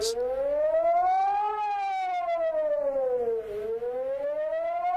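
Singapore Public Warning System siren sounding the Alarm Signal, a wailing tone that slowly rises for about a second and a half, falls for about two seconds, then rises again. This signal tells people to move to a shelter immediately.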